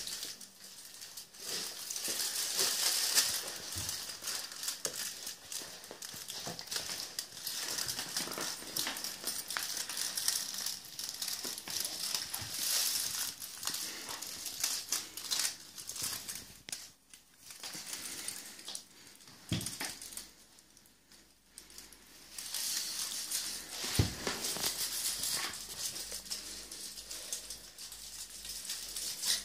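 Aluminium foil wrapped around a cat crinkling and rustling as the cat moves, in stretches with short pauses. Two dull knocks come in the second half.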